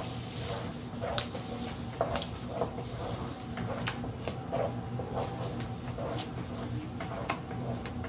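Wooden spatula scraping and knocking against a non-stick frying pan as eggs are stirred and scrambled in tomato paste, in irregular strokes about one or two a second. A steady low hum runs underneath.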